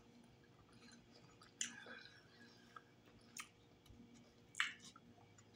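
Quiet close-up chewing of fried, breaded chicken hearts, with three brief, sharper mouth sounds spread through.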